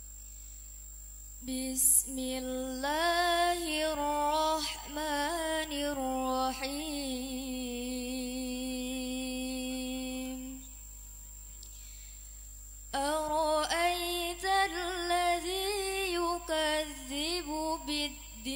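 A woman reciting the Qur'an in a slow, melodic chant into a microphone. One phrase begins about a second and a half in, winds through ornamented runs and ends on a long held note. After a pause of about two seconds a second phrase begins.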